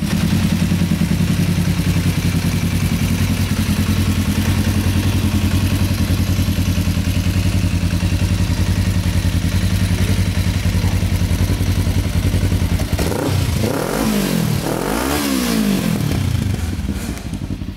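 Kawasaki ER-5's 498cc parallel-twin engine idling steadily through an aftermarket stainless silencer. About 13 seconds in it is revved twice, each rev rising and falling, then it settles back to idle.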